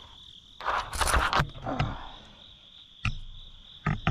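Insects droning steadily at a high pitch. About half a second in comes a loud noisy burst lasting about a second, and several sharp knocks follow near the end.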